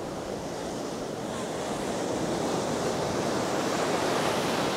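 Ocean surf washing up on a sandy beach, a steady rush that grows louder from about two seconds in, with some wind on the microphone.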